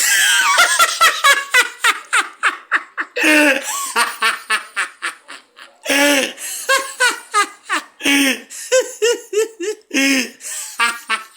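A person laughing loudly and hard, in long fits of rapid, high-pitched laughs with short breaks between them.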